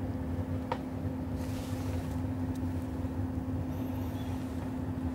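Steady electrical hum with a low drone from running workbench equipment, with one short click a little under a second in.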